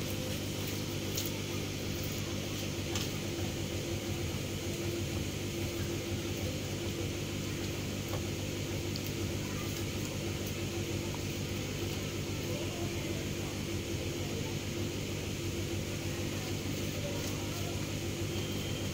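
Steady low mechanical hum, unchanging throughout, with a few faint soft clicks and taps on top.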